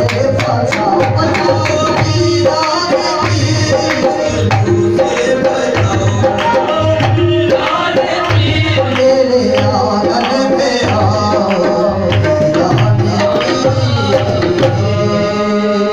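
Qawwali music: harmoniums and voices singing over a steady, driving hand-drum beat. Near the end the drumming stops and a held harmonium chord rings on.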